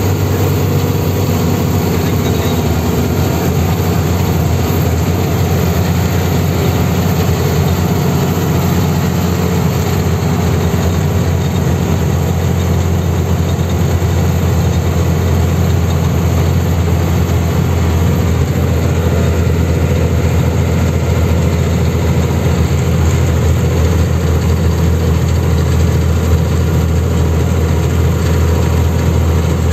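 Truck engine running steadily at cruising speed, heard from inside the cab as a deep, even drone mixed with road noise.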